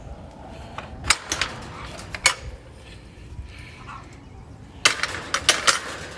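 A series of sharp clicks and knocks, a few about a second in and a quicker cluster near the end.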